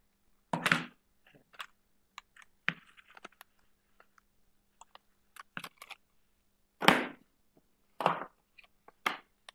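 Irregular computer keyboard clicks at a desk, with several louder knocks, the first about a second in and more near the end.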